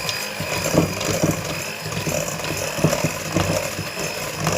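Electric mixer running with a steady high whine, beating a cake batter of eggs, sugar, oil and salt in a bowl, with irregular knocks of the beaters against the bowl.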